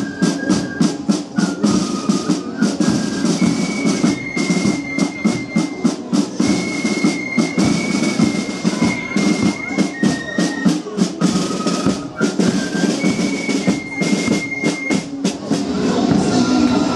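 Fife-and-drum marching band playing: flutes carry a high, held melody over rapid, steady snare drumming.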